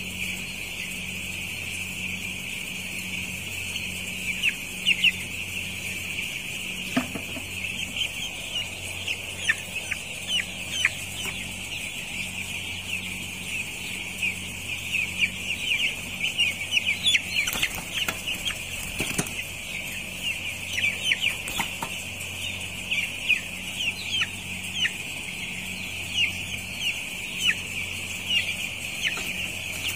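A flock of nine-day-old broiler chicks peeping without pause, many short high chirps overlapping, over a steady low hum. A few sharp clicks sound around the middle.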